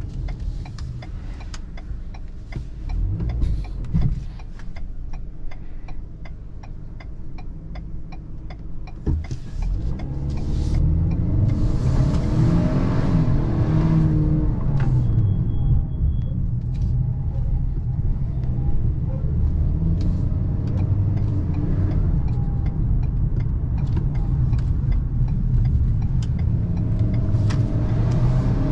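Ford Maverick's turbocharged 2.0-litre four-cylinder EcoBoost engine and road noise while driving. The first part is steady and quieter. About ten seconds in the engine gets louder under acceleration, its pitch rising and dropping as the automatic shifts up, then it holds a louder steady run. Near the end the pitch climbs again as it accelerates once more.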